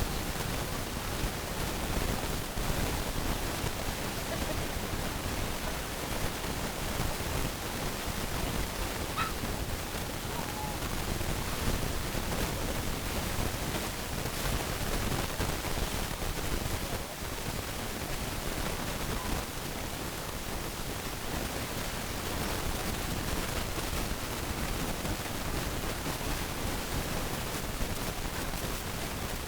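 Steady rushing noise, even from low to high pitches, with no clear clucking or crowing heard over it.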